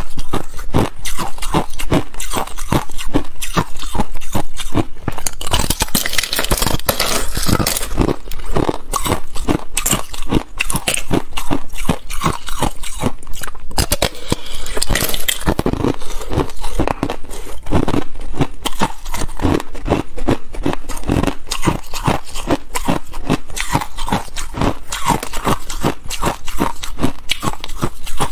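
A person biting and chewing ice: a continuous stream of sharp, loud crunches, several a second.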